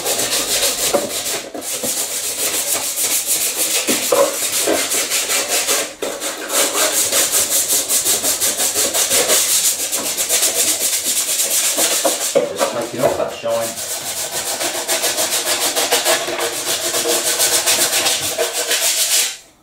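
Hand sanding of a glass-fibre (GRP) preform corner trim with sandpaper: fast, steady back-and-forth rubbing strokes, with short breaks about six and twelve seconds in. The sanding keys the trim's shiny, release-agent-coated surface so that laminate will bond to it.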